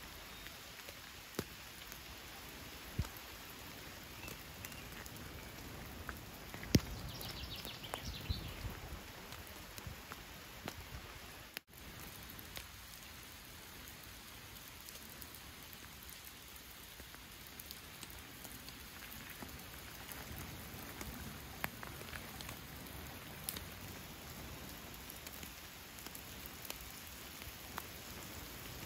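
Steady rain falling on a lake, leaves and grass, an even patter with scattered sharper drop hits. The sound drops out for an instant a little under halfway through.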